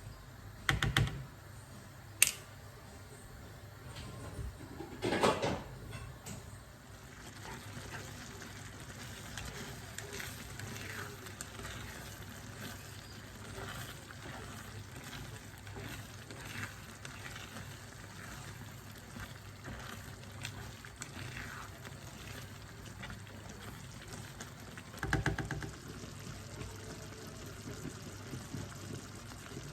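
Liquid noises from a pot of tomato sauce, a steady soft hiss, broken by a few short clatters in the first few seconds and again about 25 seconds in.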